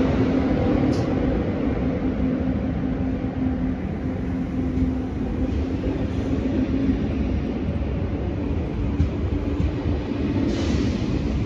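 A train running by with a steady rumble, and a low hum that fades out about two thirds of the way through.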